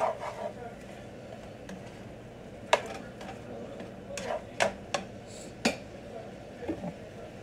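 A handful of sharp kitchen clicks and knocks, about six in all, with three in quick succession around the middle, over a low steady room background.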